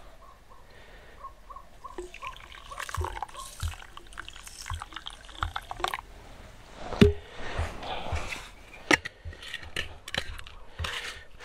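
Water glugging out of a tilted plastic water bottle in a quick run of gurgles, followed by scattered knocks and clinks as the bottle and camp cookware are handled, the loudest a sharp knock about seven seconds in.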